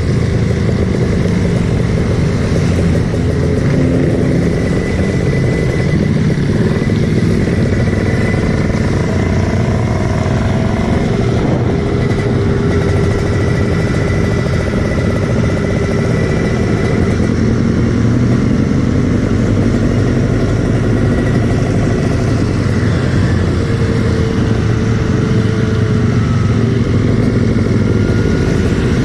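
Kawasaki Ninja two-stroke motorcycle engine running steadily while being ridden.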